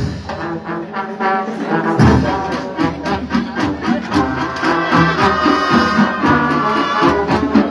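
Marching band playing a Latin-style number: brass with trombones and trumpets over a regular drum beat, with a strong accent about two seconds in and sustained horn notes in the second half.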